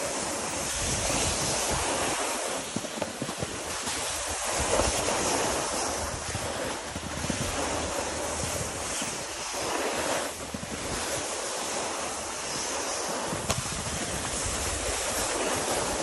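Steady scraping hiss of a snowboard sliding over packed, rutted snow on a downhill run, with wind rumbling on the microphone.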